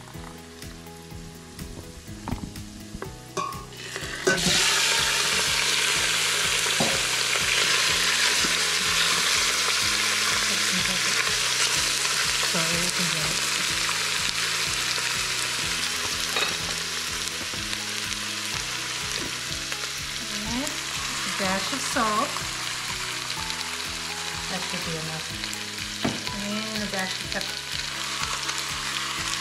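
Pork ribs hitting hot oil in an Instant Pot's stainless inner pot: a loud sizzle starts suddenly about four seconds in and keeps frying steadily as the meat browns. A silicone spatula stirs the pieces now and then.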